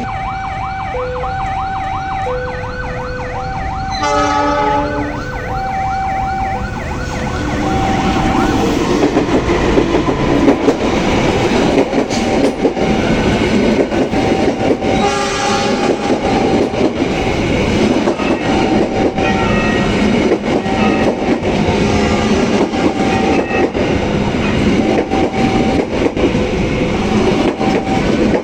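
Level-crossing warning alarm sounding in a repeating two-pitch pattern. A train horn blows about four seconds in, then a train passes on the double track, its wheels clacking over the rail joints, with a second short horn blast midway while the alarm keeps ringing.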